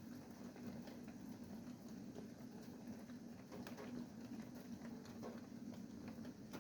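Light rain pattering, with scattered drops ticking irregularly. A low steady hum runs underneath.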